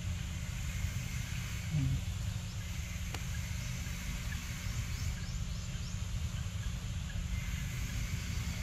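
Steady low rumble of outdoor background noise, with a short low call about two seconds in, a single click near three seconds, and faint high chirps around the middle.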